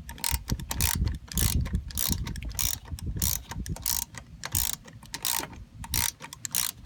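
Ratchet wrench clicking in quick, irregular runs of sharp clicks while turning a SpeedOut extractor bit in a stripped hex bolt.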